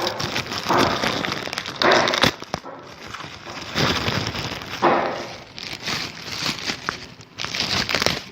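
Speaker packaging being handled: plastic and foam wrapping crinkling and rustling in irregular bursts, some with brief squeaks.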